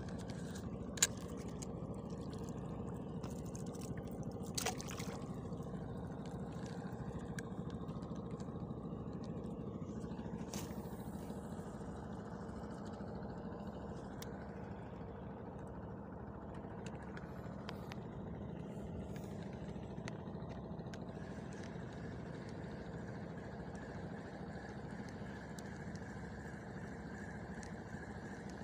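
A boat's motor running steadily, with a sharp click about a second in and a smaller one a few seconds later.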